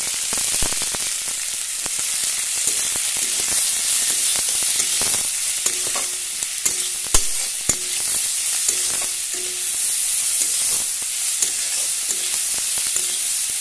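Sliced onions sizzling in hot mustard oil in a kadai, stirred with a spatula that scrapes and knocks against the pan in frequent short clicks over a steady frying hiss. The onions are being fried with salt and turmeric until they turn reddish-brown.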